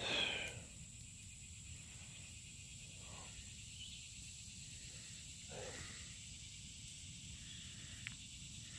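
Faint steady outdoor hiss with a high, even insect drone over it and a low rumble beneath. A short louder sound comes right at the start, and a single click about eight seconds in.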